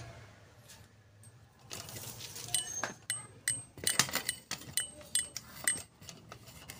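Metal parts clinking: about a dozen irregular sharp, ringing metallic clinks, starting after a quiet second or so. They come from work on a motorcycle's rear wheel, chain and sprocket.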